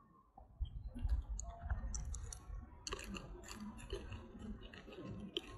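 A baby macaque mouthing and chewing a small green stem: a run of soft, irregular clicks and smacks over a low rumble.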